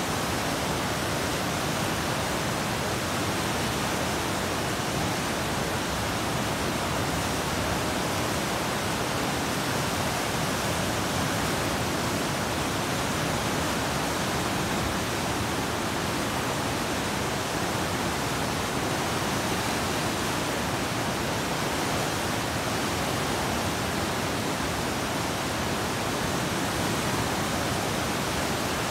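A large river in flood below a weir: fast, muddy water rushing and churning over and past the weir in a steady, unbroken rush of white water.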